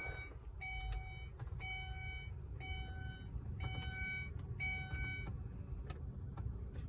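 Five evenly spaced electronic beeps, about one a second, each held for just under a second, while transponder keys are being programmed to a 2002 Ford Escape's immobilizer. A few faint clicks follow.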